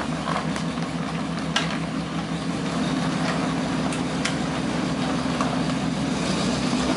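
M5A1 Stuart light tank's twin Cadillac V8 engines running steadily as the tank creeps and pivots on gravel, the engine note growing louder about three seconds in. A few sharp clicks stand out over the hum.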